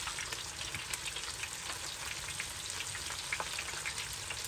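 Chicken drumettes deep-frying in a wide steel pan of oil at about 350°F: a steady sizzle dotted with fine crackles.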